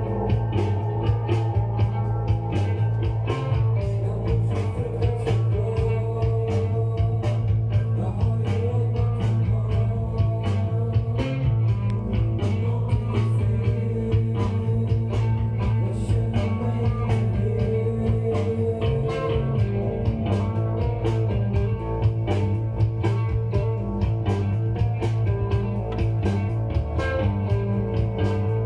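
Blues-rock record playing on a Pioneer PL-15R turntable: electric guitar over bass and a steady drum beat.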